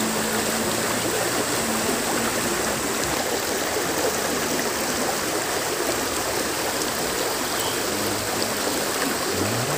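Steady rush of flowing river water, an even hiss with no breaks.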